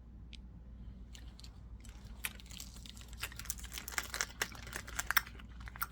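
Faint, irregular crinkling and clicking of a candy wrapper being opened and the candy being eaten, busier from about two seconds in.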